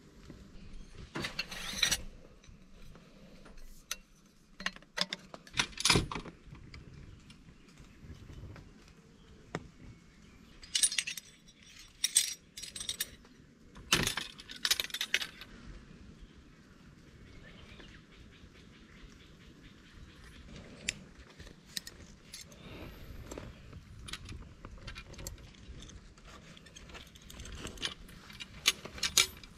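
Metal camping gear clinking and clattering as it is handled: a sectioned tent pole, metal tent pegs and a carabiner on a coiled rope. The sharp jingles come in clusters, with quieter small clicks between them.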